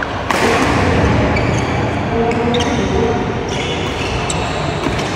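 Badminton doubles rally: sharp racket strikes on the shuttlecock and short shoe squeaks on the wooden court floor, over a steady noisy background.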